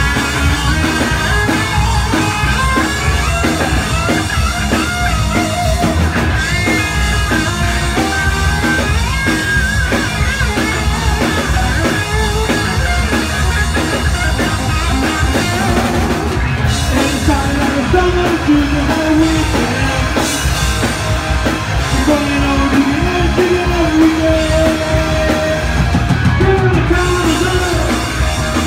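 Live rock and roll band playing loud: drum kit, Fender electric bass and hollow-body electric guitar, with melody lines over the beat.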